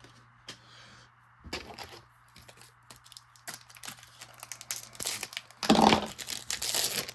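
Plastic hockey-card pack wrapper crinkling and being torn open, with scattered crackles and one louder tear near the end.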